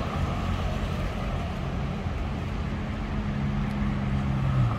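Road traffic: a steady mix of vehicles running along a city street, with one engine's low hum standing out in the second half.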